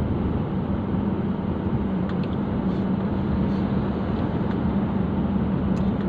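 Steady running noise of a car heard from inside its cabin while driving: engine and tyre-on-road rumble with a constant low hum.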